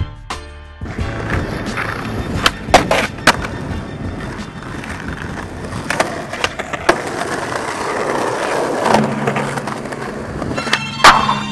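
Skateboard wheels rolling on rough concrete, with several sharp wooden clacks of the board popping and landing; the loudest clack comes near the end. Music with a steady droning tone comes in about nine seconds in.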